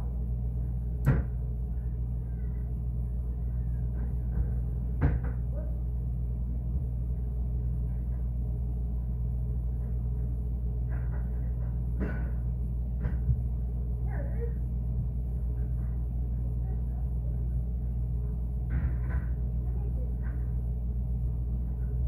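Refrigerator running with a steady low hum, heard from inside the closed fridge, with a handful of short sharp clicks or knocks scattered through it.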